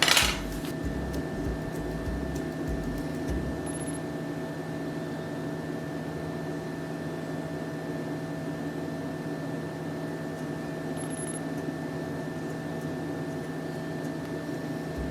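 Steady appliance hum: a few constant tones over a low noise haze, with faint low bumps in the first few seconds.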